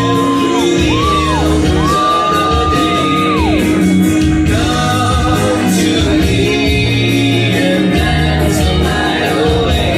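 Loud song playing with sung vocals holding long notes, over a steady beat and bass, with shouted voices, in a large room.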